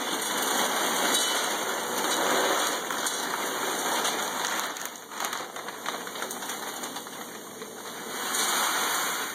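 Wood pellets pouring from a bag into a pellet stove's hopper: a dense, steady rush that thins after about five seconds into a patter of separate pellets as the bag empties, then swells again near the end as the bag is shaken out.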